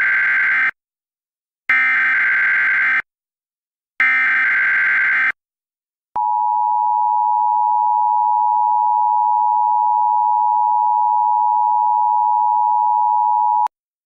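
Emergency Alert System tones: the tail of one SAME header data burst, then two more bursts of warbling data tones a little over a second long, followed by the steady two-tone EAS attention signal held for about seven seconds and cut off abruptly.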